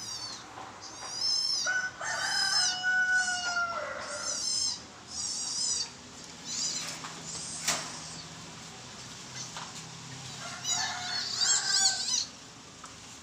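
Civet kits squealing in repeated bursts of high, rapidly wavering chirps as their mother carries them off. A longer, steadier, lower-pitched call runs from about two to four and a half seconds in, and a single sharp knock comes near the middle.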